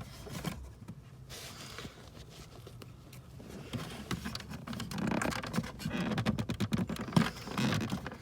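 Hands working the plastic tabs of a car's cabin filter cover under the glove box: light scratching and scraping on plastic trim with small clicks, sparse at first and busier in the second half.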